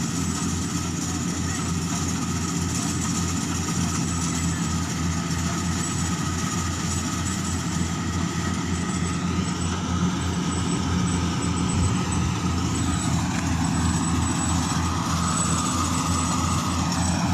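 An engine running steadily with an even low throb, slightly louder in the second half, typical of harvest machinery working in a rice field.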